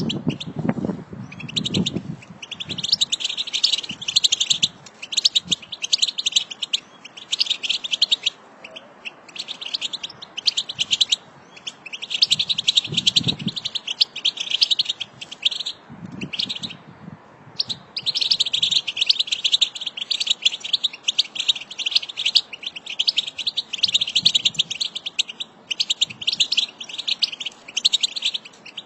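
A group of European goldfinches twittering: rapid, dense chirps in bursts of a few seconds with short breaks between them.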